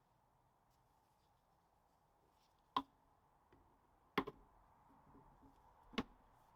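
Three short, sharp clicks, spaced about a second and a half apart, from tools or parts being handled, with near silence between them.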